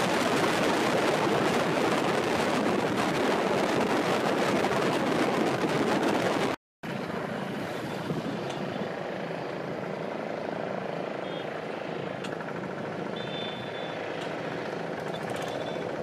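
Steady wind noise buffeting the microphone, heavier for the first six seconds, then after a brief dropout a softer steady hiss with a few faint, short high-pitched tones.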